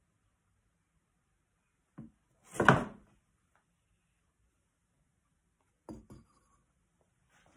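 Pottery wheel bat being pulled up off the wheel head's pins: a click about two seconds in, then a loud scraping clunk lasting about half a second. Two lighter knocks come near the end.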